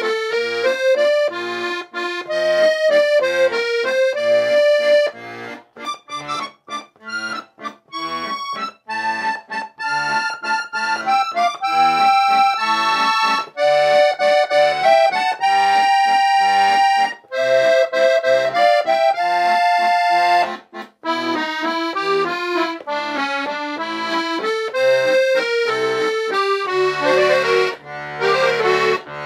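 Bugari Armando piano accordion played solo: a waltz melody on the right-hand keys over a recurring left-hand bass-and-chord accompaniment. A stretch of short, detached notes comes about six seconds in, and fuller sustained chords near the end.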